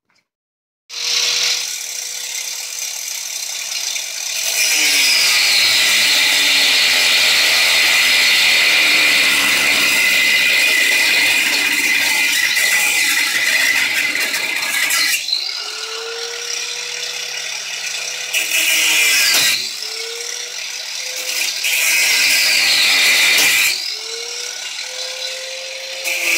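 Handheld cut-off grinder cutting through a seized suspension bolt. The motor spins up about a second in, then makes one long loud grinding screech with its pitch sagging under load. Three shorter cuts follow, and the motor slows right down and winds back up between them.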